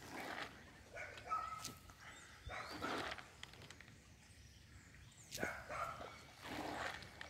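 An animal calling about five times in short separate calls, some with a steady whining tone.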